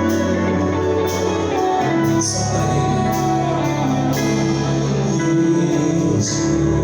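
Live band music with guitar over held bass notes and cymbal hits.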